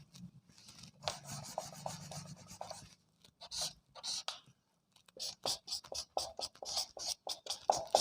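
Faint scratching of handwriting in short strokes, sparse at first and coming thick and fast from about five seconds in.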